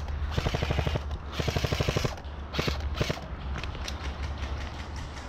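A&K M249 Para airsoft electric gun firing two short full-auto bursts, each just over half a second of rapid clatter, followed by a few single shots.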